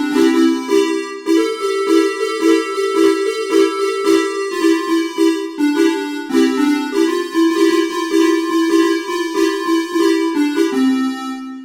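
Basuri 'telolet' musical horn playing a quick melody through its trumpet: a run of short, steady notes that fades away near the end.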